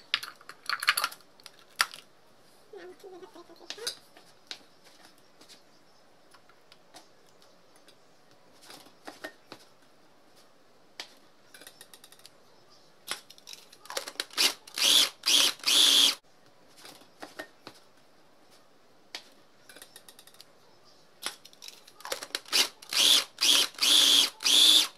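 Electric mini food chopper pulsed in short bursts on the chop setting, mincing raw tuna: a run of quick bursts about halfway through and another run near the end. Light clicks and knocks of the bowl and lid come in between.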